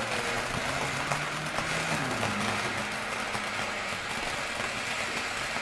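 Ground fountain firework spraying sparks with a steady hiss, with a faint low hum underneath.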